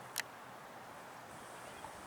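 Faint outdoor background noise, with one brief, sharp, high-pitched tick a moment after the start.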